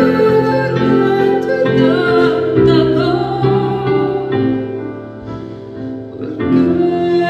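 A woman singing into a microphone, her melody wavering with vibrato over sustained chords on an electric stage keyboard; the music softens briefly about five seconds in before swelling again near the end.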